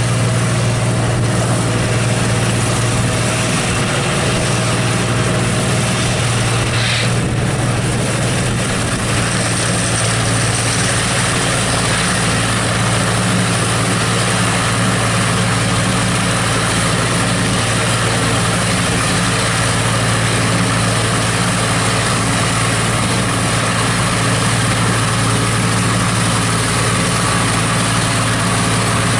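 New Idea 705 Uni System forage harvester (Uni Chopper with corn head) running under load while chopping corn silage: a steady, loud engine drone with the whir of the chopper.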